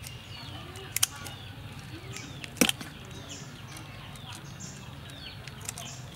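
Scissors snipping through river prawn shell: a few sharp cuts, the loudest about two and a half seconds in. Birds chirp repeatedly in the background.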